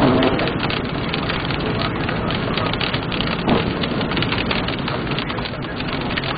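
Heavy rain pelting a moving car's roof and windshield in a thunderstorm, a dense steady patter of many small impacts, with a sharper knock at the start and another about midway.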